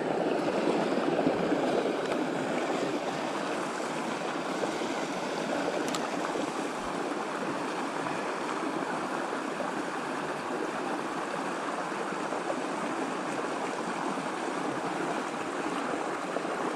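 Steady rushing and babbling of a creek's flowing water over rocks.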